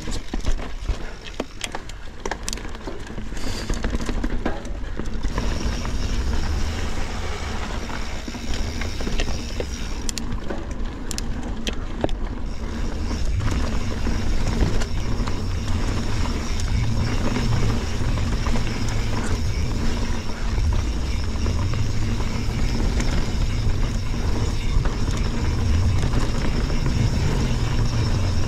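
Mountain bike riding over a trail: steady tyre and drivetrain noise with wind rumbling on the microphone, and sharp knocks and rattles of the bike over rocks and roots, a cluster of them in the first few seconds and again about ten to twelve seconds in.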